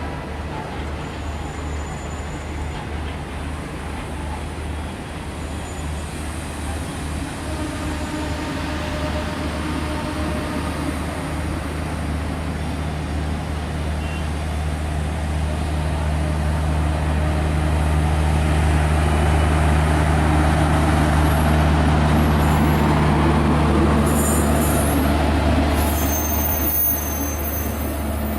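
Train running on the tracks: a steady low rumble that grows louder through the middle and eases off near the end, with thin high-pitched squeaks in the last few seconds.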